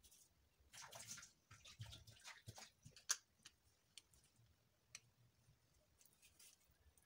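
Faint rustling and light tapping as ground spice is tipped from a small dish onto raw chicken wings in a glass bowl, with one sharper click about three seconds in and a couple of small ticks after; otherwise near silence.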